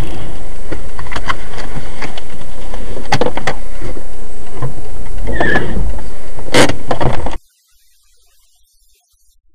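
Loud, distorted in-cabin dashcam audio of a car on the move: steady road and engine noise with scattered knocks and rattles. It cuts off suddenly about seven seconds in.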